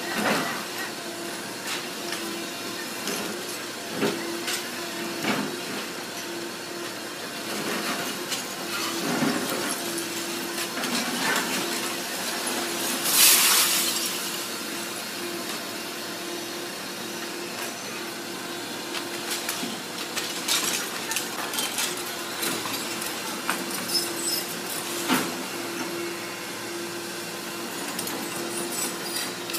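Tracked Doosan excavator running with a steady engine hum as its bucket breaks up a brick-and-concrete building, with scattered knocks and clatter of falling masonry and a loud crash of debris about thirteen seconds in.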